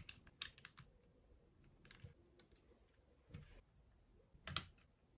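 Faint clicks and taps of Lego Technic plastic parts being handled: a quick cluster of clicks in the first second, then a few scattered knocks, the loudest a little after four and a half seconds.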